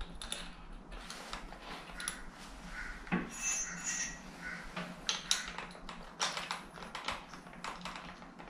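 Scattered small metallic clicks and rattles of a tile drill bit being fitted into a corded drill's keyed chuck and the chuck key being turned to tighten it.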